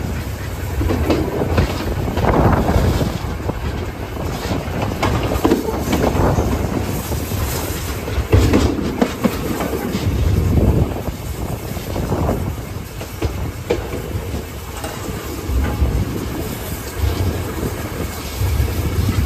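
Passenger coach of a steam-hauled train running along the line: a steady wheel-and-rail rumble with the clickety-clack of rail joints and irregular louder surges.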